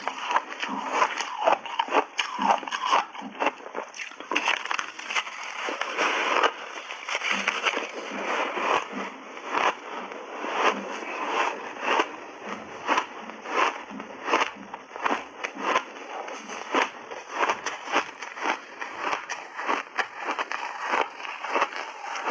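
Crunchy refrozen ice being chewed up close to a lapel microphone: a dense, irregular run of sharp crunches and crackles, several a second.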